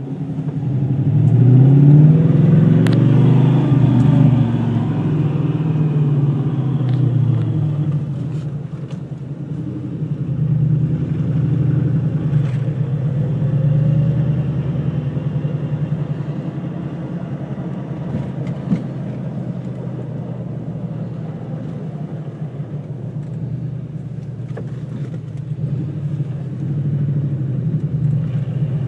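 2002 Ford Mustang GT's V8 engine running, with the revs picking up about a second in before it settles to a steady run. The owner is trying to catch a weird noise that he traces to the transmission/clutch area.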